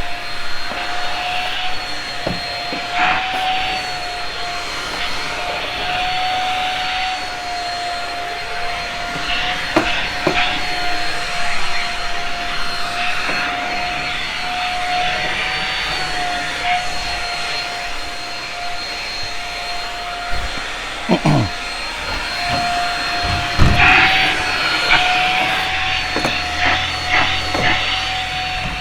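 Shark Rocket stick vacuum running with a steady high motor whine over rushing air. Short knocks and rattles come now and then as it works along the carpet edges.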